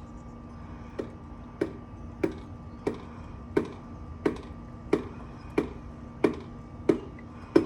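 Piston being knocked down into a cylinder bore of an LS V8 engine block, a little at a time. The sharp knocks come evenly, about one every two-thirds of a second, starting about a second in and getting louder, each with a short ring.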